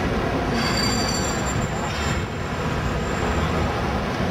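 Steady rumble of busy street traffic, with a brief faint high squeal about a second in.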